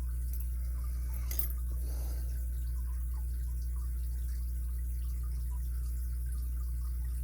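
Faint small clicks of a lock pick setting pins in an ABUS 83CS80 padlock, with one sharper click and short scrape about a second and a half in, over a steady low electrical hum.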